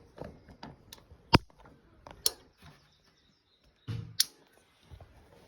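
Distributor cap being fitted onto a 123 electronic ignition distributor: a series of sharp clicks and knocks as the cap and its clips are seated, the loudest about a second and a half in.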